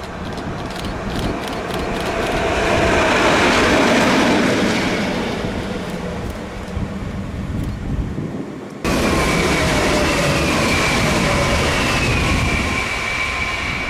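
A red electric locomotive passing by on the line: a rushing noise that swells and fades, with a motor tone that glides down as it goes past. About nine seconds in the sound cuts abruptly to an electric multiple-unit passenger train passing close by, a steady loud rush with a high motor whine.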